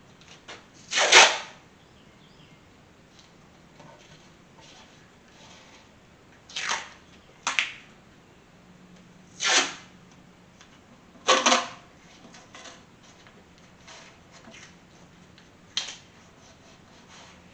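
Tape being pulled off a roll in six short rips spread over several seconds, the first the loudest, as openings on an engine are taped over before painting.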